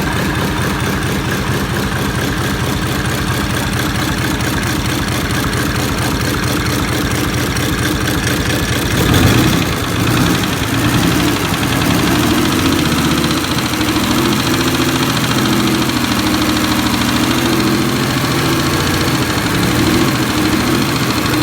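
Mercedes-Benz OM603 inline-six diesel engine running at idle with a steady, even rhythm; about nine seconds in it swells briefly, then settles into a steady run again.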